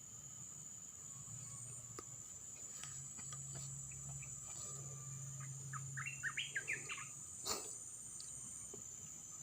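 Outdoor ambience: a steady high-pitched insect drone with a low hum beneath it. About six seconds in, a quick run of eight or so short chirps, then a single brief knock.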